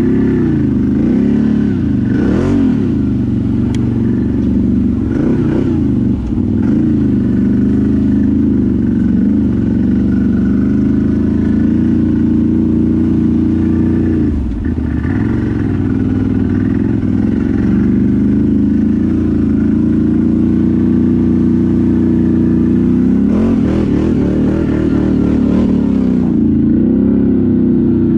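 ATV engine running under way, its revs falling and picking back up several times as the throttle changes.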